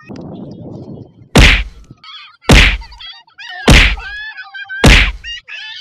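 Four heavy punch sound effects, evenly spaced about a second apart, after a second of low rough noise. A wavering, high-pitched voice cries out between the blows.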